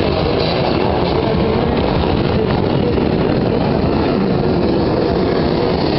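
A pack of vintage motocross motorcycles accelerating hard away from the start line, many engines revving together in a loud, steady mass of engine noise.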